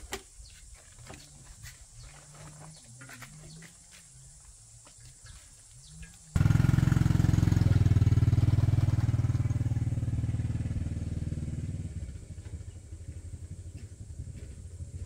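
Small single-cylinder Honda step-through motorcycle engine, coming in suddenly and loudly about six seconds in, then fading as the bike moves away. Before it, only faint clicks.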